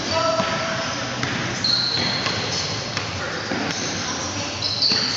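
Indoor pickup basketball on a hardwood gym floor: sneakers squeaking sharply, about two seconds in and again near the end, amid the ball bouncing and players' shouts.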